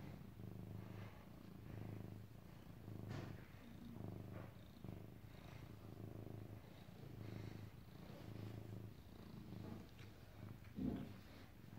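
Domestic cat purring while being stroked, the purr swelling and fading with each breath. A short louder bump near the end.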